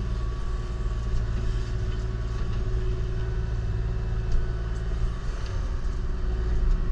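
Kubota KX040-4 mini excavator's diesel engine running steadily: a constant low rumble with a steady hum above it.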